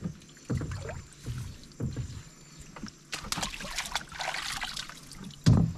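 Shallow muddy water splashing and sloshing as a man wades and works a net down against the bank, with irregular dull knocks and a louder thump near the end.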